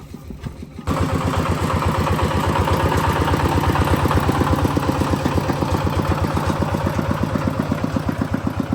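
A small engine running steadily with a rapid, even beat, cutting in suddenly about a second in.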